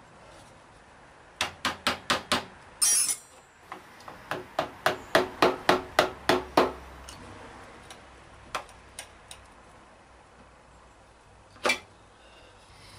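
Hand tools striking and clinking on metal: a quick run of five sharp taps, a brighter metallic clatter, then a rhythmic run of about a dozen taps at four to five a second, followed by a few scattered clicks and a single knock near the end.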